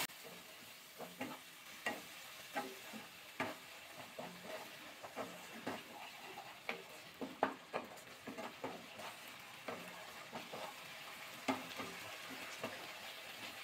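Wooden spatula scraping and knocking against a nonstick kadai as a poppy-seed paste is stir-fried in oil. Short, irregular scrapes come a few times a second over a faint sizzle.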